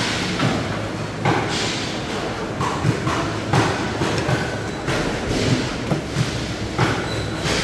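A blade chopping through stingray on a board: several irregular thuds over a steady background noise.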